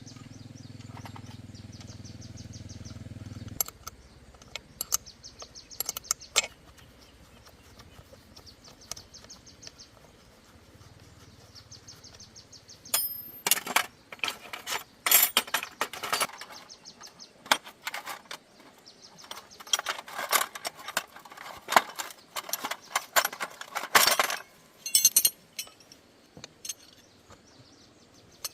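Metal tools clinking and clattering in irregular clusters of sharp knocks, busiest in two long runs in the second half. A low steady hum stops suddenly a few seconds in, and a faint high insect-like pulsing runs underneath.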